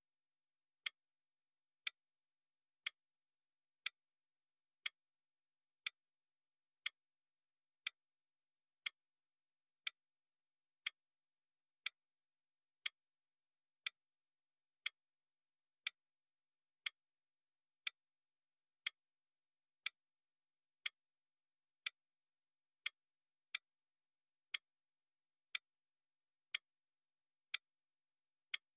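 Countdown timer ticking once a second: short, sharp, clock-like ticks with silence between them.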